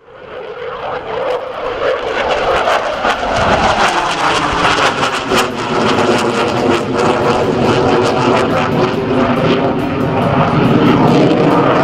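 Jet noise from a Dassault Rafale's twin Snecma M88 turbofans as the fighter flies past. It fades in over the first few seconds, then stays loud with a crackling rasp.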